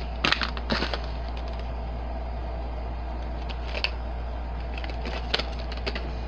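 Handling noise from packaged markers being moved about on a desk: a few sharp clicks and rustles of plastic packaging, several in the first second and single ones near four and five and a half seconds in, over a steady low hum.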